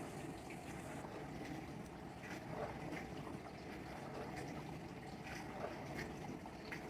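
Portable countertop dishwasher running a wash cycle: a steady low hum with water spraying and splashing inside.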